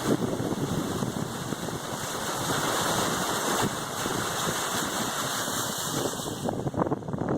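Wind rushing over the microphone with an engine running underneath. The high hiss drops away near the end.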